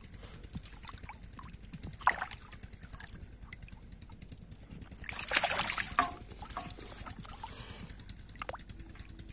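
Shallow pond water splashing and sloshing as a hooked catfish thrashes at the surface on a hand line. There is a short splash about two seconds in and a longer, louder spell of splashing about five seconds in.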